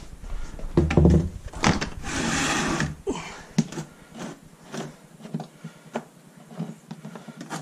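Knocks and clunks of a large drain pan being handled and set in place, with a heavy thump about a second in and a scraping slide lasting about a second, followed by lighter scattered knocks.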